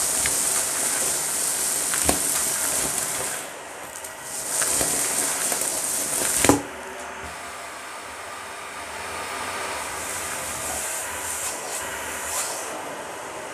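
Dyson vacuum running through its hose with a loud, high suction hiss, as grit and small debris click and rattle up the hose; the sharpest crack comes about six and a half seconds in. After that the hiss drops and the vacuum runs on more quietly.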